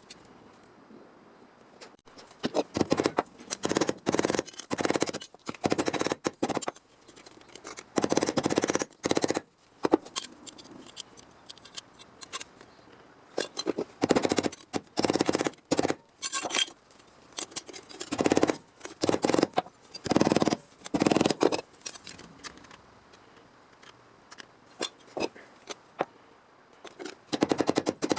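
Sheet-metal welding, probably MIG, laid down as a series of short stitch or tack welds: bursts of crackling arc, each about half a second to a second and a half long, stopping and starting again over and over.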